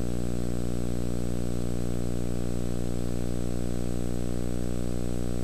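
A steady electrical hum: a low drone of many evenly spaced tones with a thin high whine above it, unchanging throughout.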